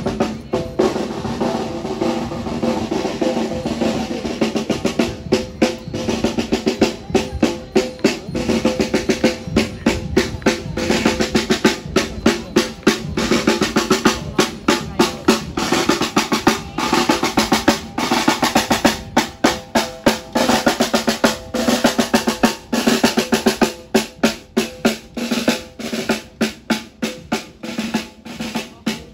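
Marching band in a miners' parade, its snare drums beating a quick march rhythm with rolls, over a bass drum and held brass notes.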